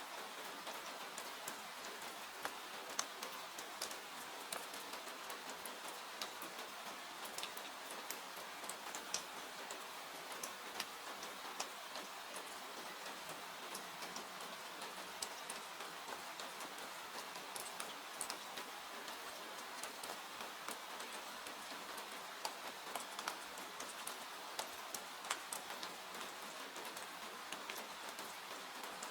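Steady rain hiss with a wood fire crackling over it in irregular sharp pops.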